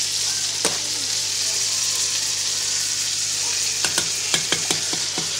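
Steady sizzling of food cooking on the stovetop. Near the end comes a quick run of sharp metal clacks as tongs knock against the pot of ramen noodles.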